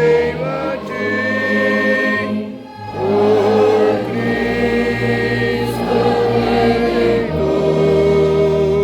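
A congregation singing a hymn in long held notes over a band of instruments, with a tuba playing the deep bass line. There is a brief pause between phrases about three seconds in.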